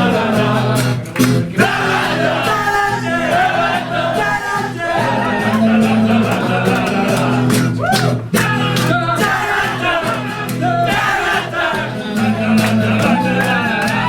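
A pop-rock song with a singing voice over guitar and bass.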